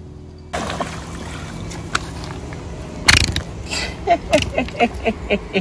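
An armored catfish hauled out of the river on a fishing line, with a sudden loud splash and thrash about three seconds in, followed by a man's voice in a quick run of short falling sounds.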